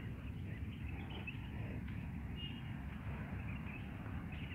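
A few faint, short bird chirps over a steady low outdoor rumble.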